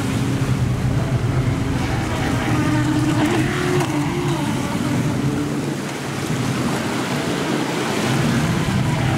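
ProBoat Recoil 26 radio-controlled boat's brushless electric motor running, its pitch wavering up and down with the throttle, over a steady rush of water and wind.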